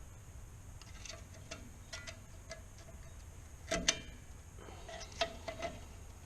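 Hand tools clinking and knocking against metal drum-brake parts: scattered sharp metallic taps, some with a short ring, the loudest pair about four seconds in, as a slightly seized wheel cylinder is worked loose.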